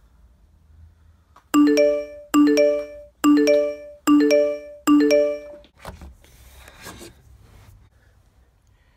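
Phone text-message notification chime sounding five times in quick succession as messages arrive, each a short rising run of bell-like notes, followed by a brief rustle.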